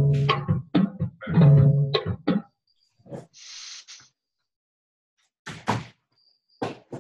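Musicians trying out their instruments over a video call: pitched notes for the first two seconds, then a short hiss about three and a half seconds in and a few scattered knocks near the end, broken up by silent gaps.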